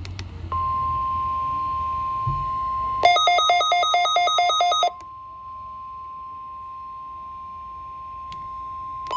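NOAA Weather Radio warning-alarm tone, a steady 1050 Hz tone sounded for the weekly test, starting about half a second in. From about three seconds in, a louder two-tone alarm alternating about eight times a second plays over it for roughly two seconds. After that the single tone carries on more quietly.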